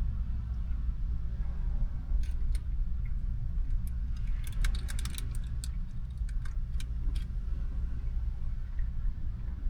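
Steady low rumble inside a car, with a run of small sharp clicks and rattles between about two and seven seconds in, as of small objects being handled.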